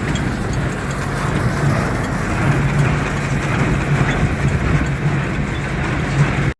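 CLAAS Dominant conventional small square baler running under tractor power: a steady mechanical clatter over a low engine hum. It cuts off suddenly near the end.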